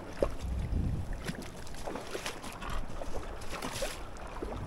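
River water lapping and splashing in the shallows, with small irregular splashes, while wind rumbles on the microphone.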